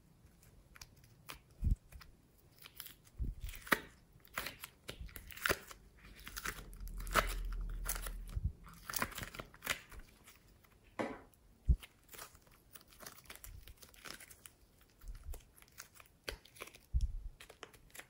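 Soft modelling clay being peeled out of a plastic tray and squeezed by hand, making irregular sticky crackles and pops, with a low rumble for a couple of seconds midway.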